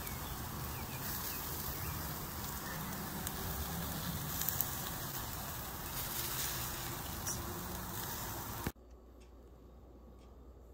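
Chicken thighs sizzling on a charcoal grill as teriyaki sauce is brushed on, with an occasional crackle from the coals or fat. The sizzle cuts off suddenly near the end, leaving faint room tone.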